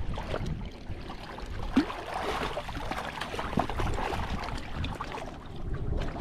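Splashing water at a rocky shoreline as a hooked hybrid striped bass thrashes at the surface, busiest about two to four seconds in.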